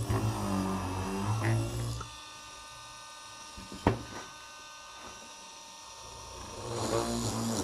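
Small DC motor of a homemade cordless mini drill running with a steady high whine, with a single sharp click in the middle. Background music plays at the start and comes back near the end.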